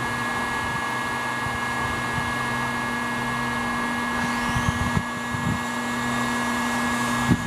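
Electric heat gun running steadily, its motor humming under the rush of hot air as it heats a motorcycle ignition pickup coil to bring out a broken internal wire. A couple of light knocks from handling in the second half.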